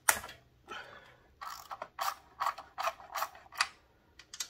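Hand ratchet and socket clicking in a series of short back-and-forth strokes, about two a second, as it backs out the air cleaner backing-plate breather bolts on a Harley-Davidson Milwaukee-Eight engine. A single sharp click comes just after the start.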